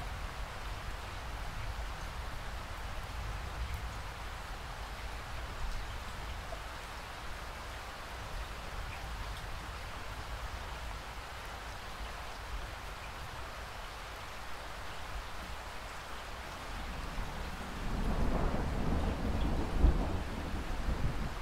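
Steady rain with a low rumble beneath it. About three-quarters of the way through, a roll of thunder swells in and peaks sharply near the end.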